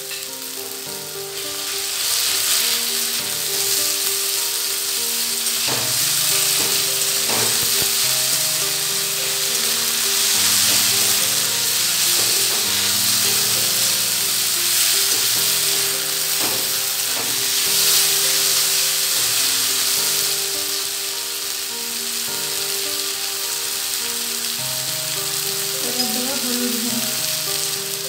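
Onions, tomatoes and ginger-garlic paste sizzling in hot oil in an aluminium kadai, getting louder about two seconds in. A metal spatula stirs the mix and scrapes against the pan now and then.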